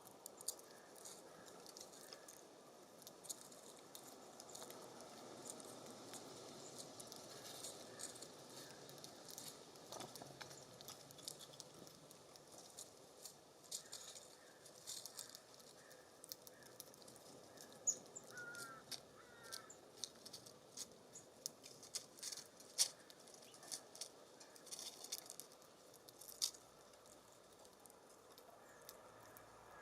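Birds feeding at a seed feeder: scattered pecking, scratching and hopping clicks over a soft breeze, with two short bird call notes about two-thirds of the way through.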